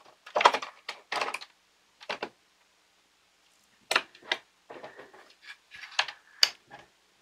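Hard plastic parts of a toy pinball machine clicking, knocking and scraping as a stuck black plastic housing is worked loose and pulled out of its plastic case: a few sharp clacks in the first second and a half, a pause, then a run of quick clicks and knocks from about four seconds in.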